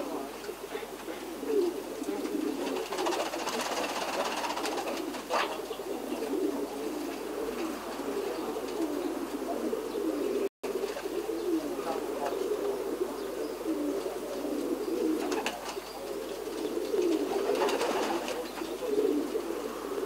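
Several domestic fancy pigeons cooing, their low coos overlapping without a break. The sound cuts out for an instant about halfway through.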